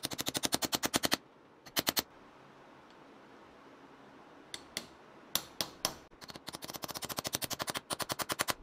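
Rapid light hammer taps on steel, about a dozen a second, ringing sharply: a run of about a second at the start, a short burst near two seconds, a few single strikes around five seconds, then a longer run until near the end, as steel pins and the slotted steel lever of a jig plate are tapped into place.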